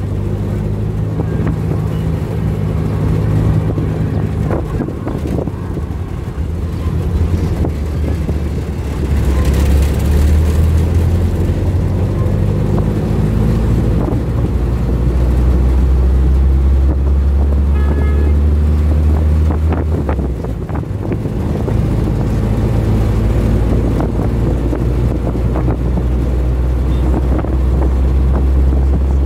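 A vehicle engine running under way, its speed rising and falling, with wind buffeting the microphone.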